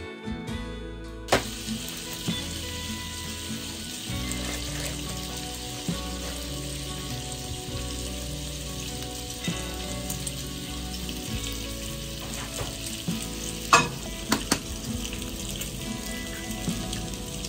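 Kitchen prep sounds over a steady hiss: a plastic bread bag being handled, and an egg knocked and cracked on the rim of a plastic measuring jug, the loudest knock about 14 seconds in. Acoustic guitar music cuts off about a second in.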